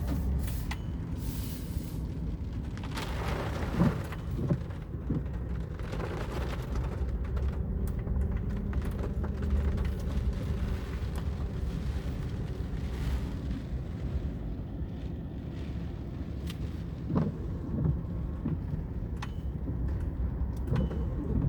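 Steady low rumble of a car's engine and tyres heard from inside the cabin while driving, with a few short knocks.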